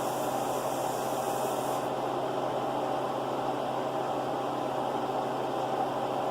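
Steady hum and hiss of running machinery, with no breaks. The highest part of the hiss drops away about two seconds in.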